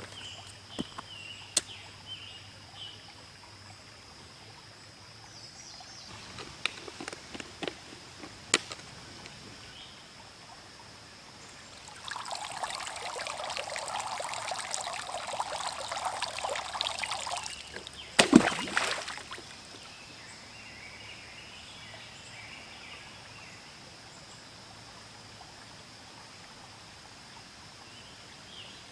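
Plastic apple juice bottle minnow trap dipped into a creek, water rushing and gurgling into it for about five seconds, then a sharp knock and a short splash. Scattered footsteps on rocks come before it, and a steady high insect drone runs underneath.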